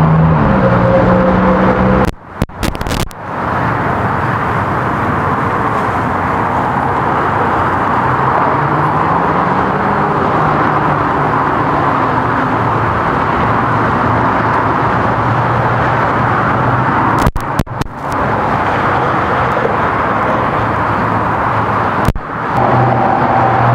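Steady road traffic noise with the hum of running vehicle engines, the pitch of passing vehicles slowly rising and falling. The sound briefly drops out three times.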